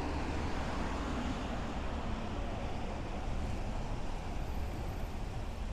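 Steady city street traffic noise mixed with a low wind rumble on the microphone of a moving bicycle.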